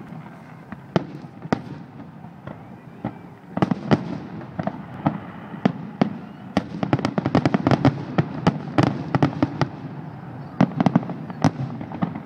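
Aerial fireworks shells bursting: a series of sharp bangs and crackles over a steady low background noise. They come scattered at first, then in a rapid volley from about six and a half to nine and a half seconds in, with another quick cluster near the end.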